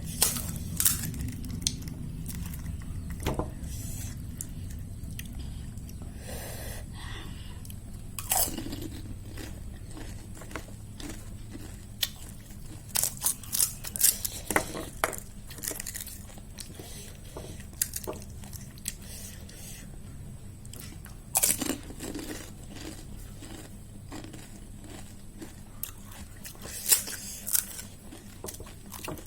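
Golgappa (pani puri) being bitten and chewed close to the microphone: the crisp fried puri shells give irregular sharp crunches, several in quick succession about halfway through and again near the end, over a steady low hum.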